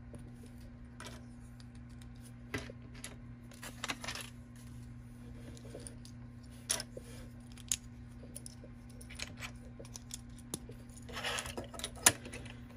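LEGO plastic bricks being handled and pressed together, in scattered sharp clicks a second or two apart, with a brief clatter of pieces near the end. A steady low hum runs underneath.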